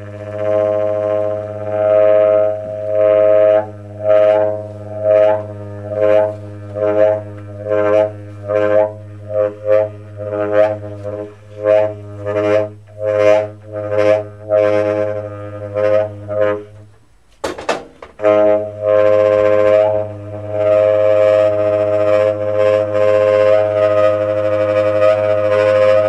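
Tenor saxophone played solo in a drone-like, didgeridoo-like style: a rhythmic, pulsing pattern of notes over a steady low drone. It breaks off briefly about seventeen seconds in, then settles into one long held tone over the same drone.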